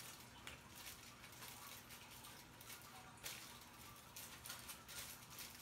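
Near silence with faint, irregular scratchy rustles of a comb being pushed back through a section of hair to tease it.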